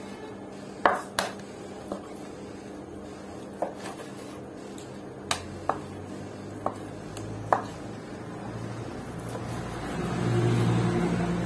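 Butcher's knife cutting lean meat into chunks on a wooden chopping board: about eight sharp, irregularly spaced taps of the blade striking the board. A low steady hum comes in about halfway and grows louder near the end.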